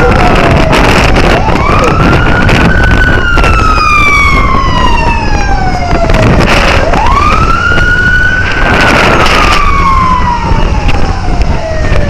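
Police siren wailing: each cycle rises quickly and then falls slowly over about five seconds, repeating twice with another rise starting near the end, over a steady low road rumble.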